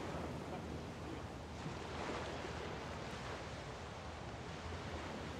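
Small waves of the bay washing onto the shore: a steady rushing hiss that swells slightly about two seconds in, over a low rumble.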